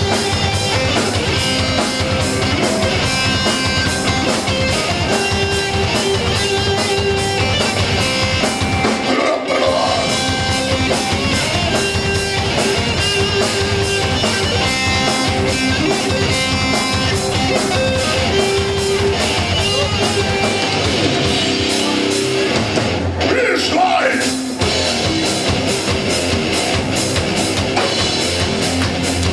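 Live rock band playing loud: distorted electric guitar over a drum kit beat, heard from within the audience. The low end drops out briefly about nine seconds in and again for a couple of seconds around 23 seconds.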